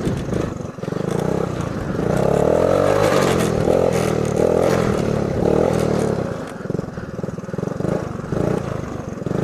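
1979 Honda ATC 110 three-wheeler's small single-cylinder four-stroke engine being ridden, revving up and held on the throttle about two seconds in, then easing off to short throttle blips in the second half.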